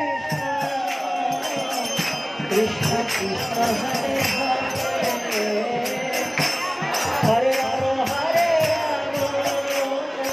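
Devotional kirtan: voices singing a chant over a steady beat of jingling metal percussion such as hand cymbals. The singing is strongest at the start and again from about seven seconds in.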